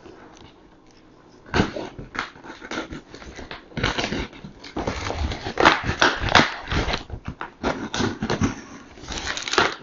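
A sealed cardboard shipping box being opened by hand: a quick run of scraping, rustling and tearing noises, starting about a second and a half in.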